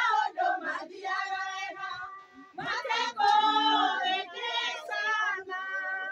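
Women singing a Kikuyu song together in high voices, in held, bending phrases with a brief pause about two and a half seconds in.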